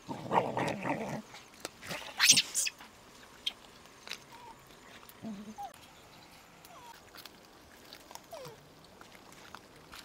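Puppies making sounds as they feed beside a piglet: a low call through the first second, one short sharp cry about two seconds in, then a few faint thin whines.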